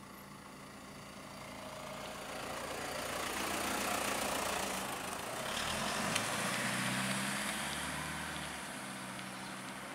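Diesel lorry engine running as the truck drives slowly past, with tyre and road noise; it grows louder over the first few seconds, is loudest in the middle, and eases off near the end.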